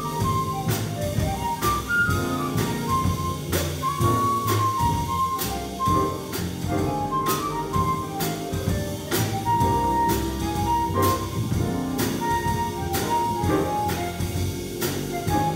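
Small jazz combo playing a blues: a flute solos in quick runs of short notes over keyboard comping, walking upright bass and drums keeping a steady beat on the cymbals.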